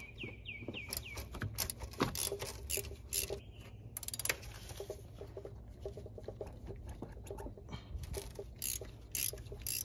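A socket ratchet clicking in a short, quick run about a second in, then scattered light clicks and taps of tools and metal parts as the AC compressor's mounting bolts are worked loose.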